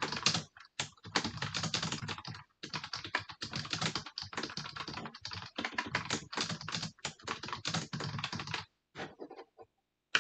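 Rapid typing on a computer keyboard: a quick, dense run of key clicks that thins out to a few last keystrokes near the end.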